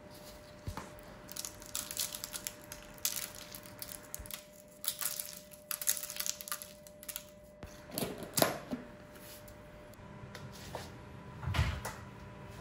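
Fingers crushing and sprinkling crystals, likely flaky salt, over cut fruit on a parchment-lined baking tray: a scatter of small, irregular crackles and ticks. A few duller knocks follow near the end as the tray is handled into the oven.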